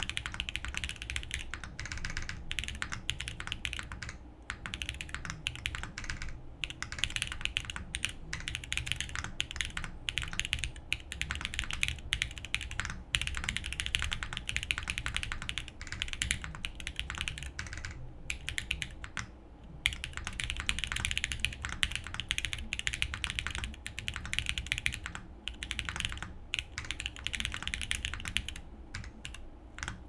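Continuous fast typing on a SingaKBD Unikorn R2.1 custom mechanical keyboard with oiled Harimau tactile switches, an FR4 plate and GMK keycaps: a dense stream of keystroke clacks broken by a few brief pauses.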